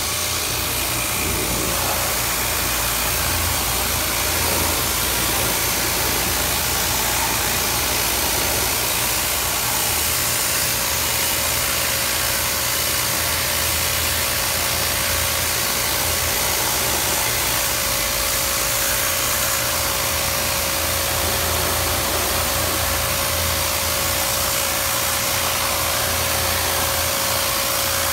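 A motor-driven machine running steadily, with an even hiss and a constant mid-pitched hum that do not change.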